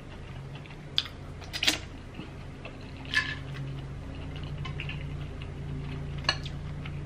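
A lawnmower engine running steadily as a low drone, with a few short sharp clicks from eating crab by hand and with a utensil.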